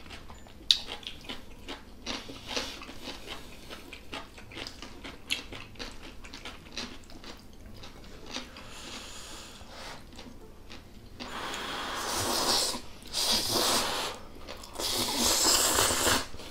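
Close-up eating sounds: chewing with small clicks of chopsticks against glass bowls, then three long, loud slurps of Chapagetti black-bean noodles in the second half.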